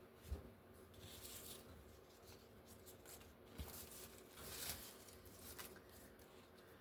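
Faint rustling of paper pieces being handled and shuffled, with a couple of soft taps on the work surface.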